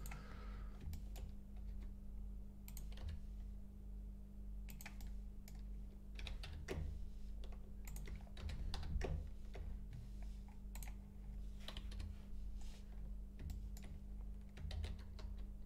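Computer keyboard keys and mouse buttons clicking at an irregular pace, a scattering of sharp single taps over a faint steady low hum.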